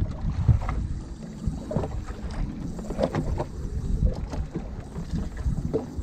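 Wind buffeting the microphone on a fishing boat on the water, a low uneven rumble with scattered knocks.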